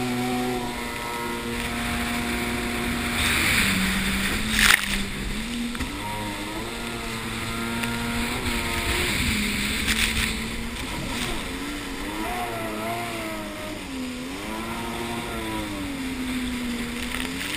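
Jet ski engine running at speed, its pitch rising and falling as the throttle and load change, over the rush of water and spray. A single sharp knock comes about five seconds in.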